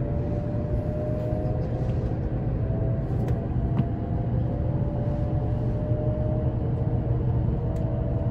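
Steady running noise inside the passenger cabin of a moving Shinkansen: a low rumble with a faint hum that drifts a little in pitch, and a few light ticks.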